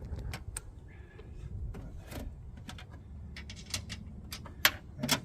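Scattered light clicks and sharp knocks of metal hardware being handled while bolting a box down, over a low steady rumble, with the sharpest knock near the end.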